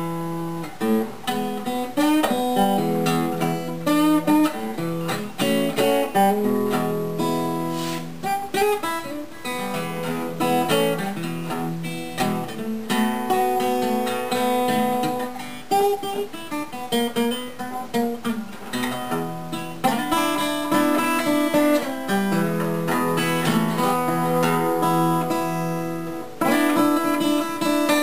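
Gibson L-48 archtop acoustic guitar played unaccompanied, mixing strummed chords with picked single notes in a loose, noodling way.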